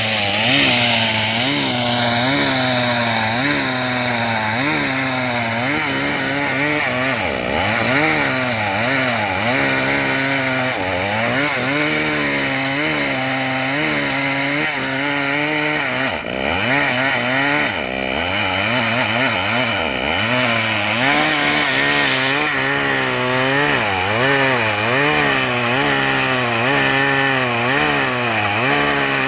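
Stihl MS 381 two-stroke chainsaw running at high revs and cutting into a meranti trunk, its pitch sagging and picking up again every second or two as the chain bites. The engine drops away briefly about two-thirds of the way through.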